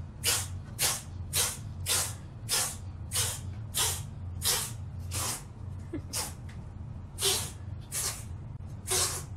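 A cat hissing over and over in short breathy bursts, a little under two a second, with a short pause about six seconds in: the cat is warning off another cat.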